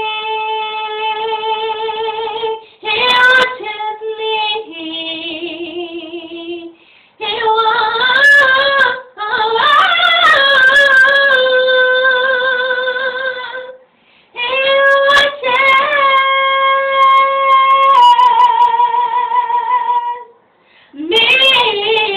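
A woman singing solo in long, drawn-out phrases, holding high notes with a wide vibrato and pausing briefly for breath between phrases.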